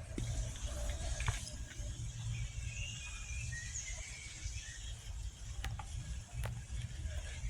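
Faint, short bird chirps over a steady low rumble, with a few sharp clicks.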